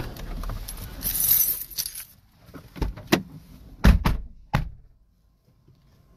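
People getting out of a parked car: rustling with a bright metallic jingle about a second in, then a series of sharp clicks and knocks of the door, the loudest a low thud about four seconds in, then near silence.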